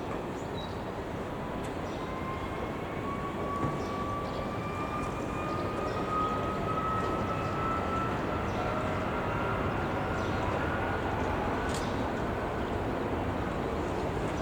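Jet airliner engines: a steady rushing noise that slowly grows louder, with a thin whine that rises slowly in pitch.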